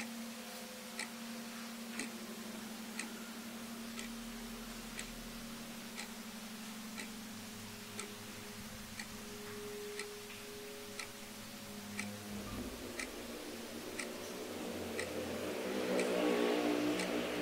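A clock ticking, one sharp tick each second, over a steady low hum. Over the last few seconds a louder sound with several tones swells up under the ticking.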